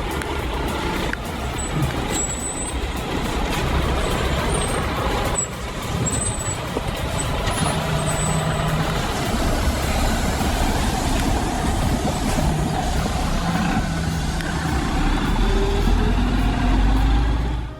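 Heavy diesel machinery running steadily, with a deep rumble and mechanical noise, which stops abruptly at the end.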